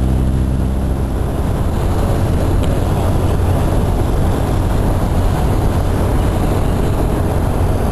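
Motorcycle riding at speed with steady wind noise on the microphone. An engine hum fades out in the first second or so.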